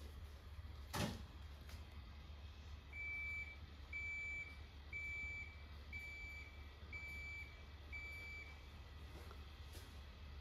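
A single sharp click about a second in, then a household appliance's electronic beeper sounding six times: short high beeps at one pitch, about once a second.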